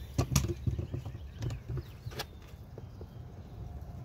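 Scattered clicks and knocks of hand work on an old outdoor hose faucet, an attempt to unscrew it from its copper pipe, over a steady low rumble. The faucet does not come loose.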